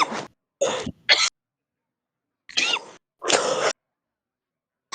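A heavy smoker's chesty cough: two quick coughs about a second in, then a pause and two more, the last one longer.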